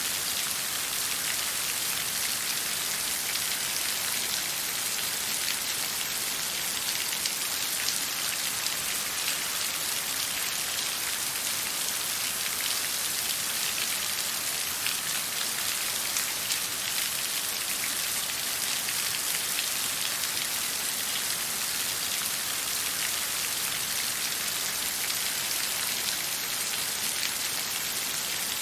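Falling water making a steady, even hiss, thick with the fine pattering of many small drops.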